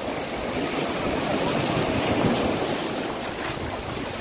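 Sea surf washing over shoreline rocks: a steady rush that swells towards the middle and eases off again.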